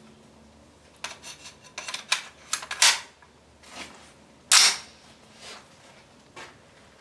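Retro AR-15 rifle (a Colt 601-style build) firing: two sharp shots about a second and a half apart, the second the loudest, preceded by a quick run of lighter clicks and pops.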